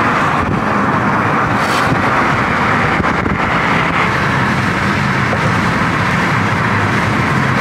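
Steady rush of wind and tyre noise inside a car driving at highway speed.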